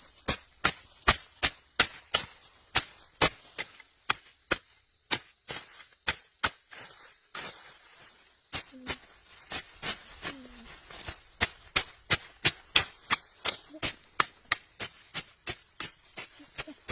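A steady series of sharp chopping strikes, about two to three a second, with a short pause about seven seconds in.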